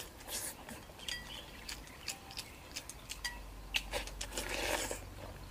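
Scattered light clicks and clinks of eating utensils against bowls at a meal, several with a brief ringing tone, and a short rustle about four and a half seconds in.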